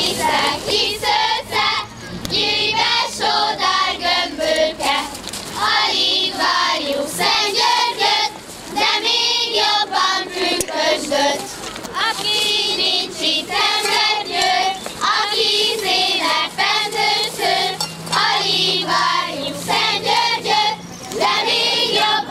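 A group of young girls singing a Hungarian folk song together, a kiszehajtó song sung around the straw effigy, with short breaks between phrases.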